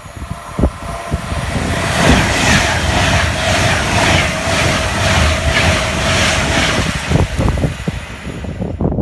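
Express passenger train passing through the station at speed: a rising rush that peaks for several seconds with a steady whine and a quick regular beat of wheels on the rails, then fades as it goes away, with wind buffeting the microphone.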